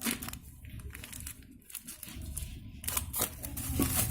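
Irregular scraping and knocking of a spoon stirring thick home-made fishing-bait dough in a pot, over a low steady hum.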